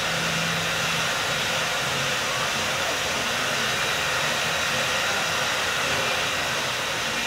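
Steady hiss of steam venting from the standing R&N 425, a 4-6-2 Pacific steam locomotive.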